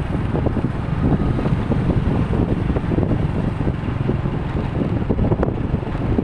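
Wind buffeting the microphone, a steady low rumble with irregular gusty flutter and no clear tone.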